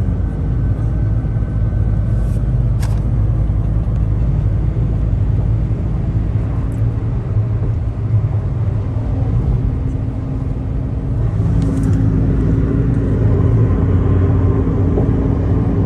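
Car driving at road speed, heard from inside the cabin: steady engine hum and tyre rumble, growing a little louder in the second half, with a couple of faint clicks.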